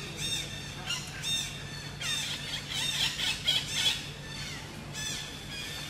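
Baby macaque squealing: short, high-pitched calls that rise and fall in pitch, coming singly about a second apart, then in a rapid, overlapping flurry between about two and four seconds in.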